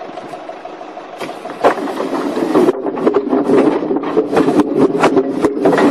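Forklift engine running steadily, then about a second and a half in a tall stack of logs gives way: a sudden crash followed by logs tumbling and knocking against each other and the forklift in a long irregular clatter.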